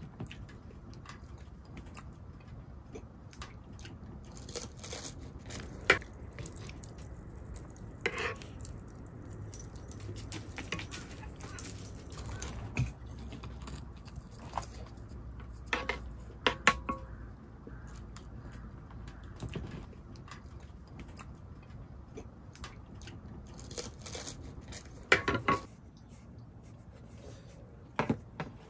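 Scattered clicks, clinks and knocks of small objects being handled, loudest about six seconds in, near the middle and twice near the end, over a steady low background noise.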